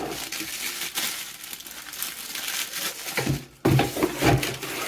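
Crinkling and rustling of packaging being handled, with a sudden break about three and a half seconds in.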